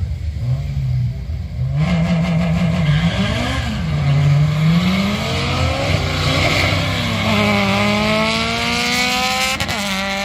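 A Ford F-150 pickup with a 351 V8 and a Honda Civic launching side by side down a drag strip, engines accelerating hard under full throttle. The engine pitch climbs and drops back at each gear change, about three times, then rises steadily near the end as the cars pull away.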